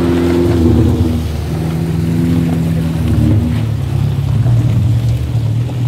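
Engine of a small Suzuki Jimny 4x4 running steadily at low speed, an even low hum with no revving.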